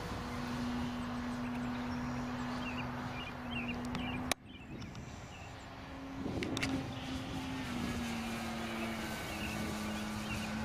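Electric motor and propeller of an E-flite Beast 60E RC biplane humming steadily in a hover, its pitch shifting with the throttle. The sound breaks off sharply about four seconds in, returns a couple of seconds later, then steps lower twice.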